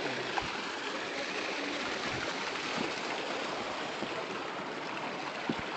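Rushing stream water, a steady even wash, with a few faint knocks near the end.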